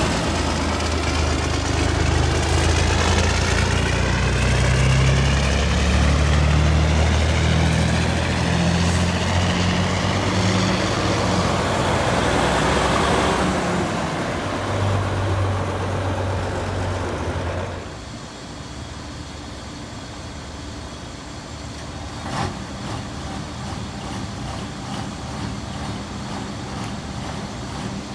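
Heavy diesel truck engines pulling away, the engine note climbing in steps as one tractor accelerates past, then a second truck's engine for a few seconds. After that the sound drops to quieter diesel idling, with one sharp click partway through.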